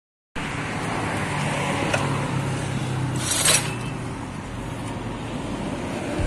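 Steady motor-vehicle traffic noise with a low engine hum, and a short, louder hiss about three and a half seconds in.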